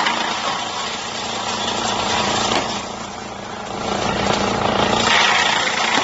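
Drum wood chipper running together with a wheel loader's diesel engine: a loud, steady mechanical din with a low hum under it. It eases off about three seconds in and builds back up about five seconds in.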